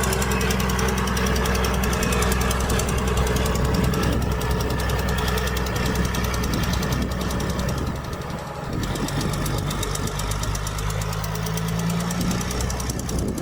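Heavy diesel engine of earthmoving machinery running under load with a fast clatter. It eases briefly about eight seconds in, then picks up again with a rising tone.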